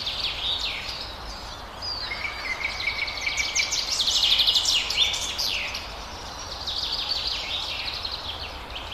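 Several wild birds chirping and trilling, with a dense run of quick repeated notes about four seconds in.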